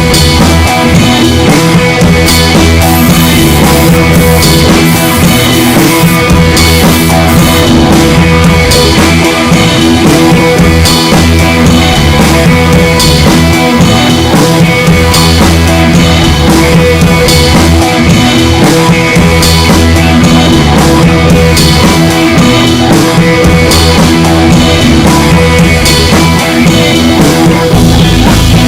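Loud background rock music with drums and guitar and a steady beat.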